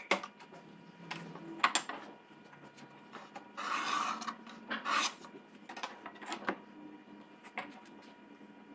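Wooden boards being handled on a wooden workbench: scattered light knocks as they are picked up and set down, and a sliding rub of wood on wood about four seconds in.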